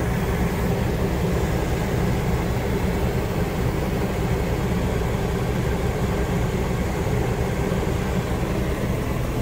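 Coleman Mach rooftop air conditioner running just after being switched on, its blower pushing a steady rush of air with a constant low hum.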